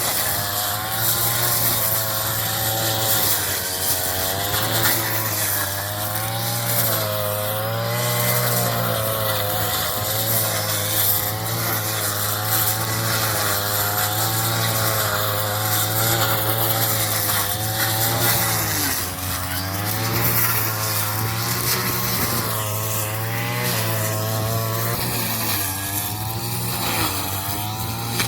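The small engine of a straw-cutting machine running hard, with a cutting hiss over it. Its pitch dips briefly several times, most clearly in the second half, as it bites into the straw.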